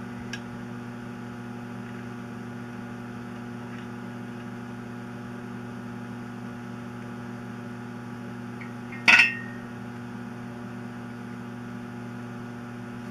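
Steady low hum, with one sharp metallic clink that rings briefly about nine seconds in, from steel bolts and the cam gear as the cam gear bolts are fitted by hand.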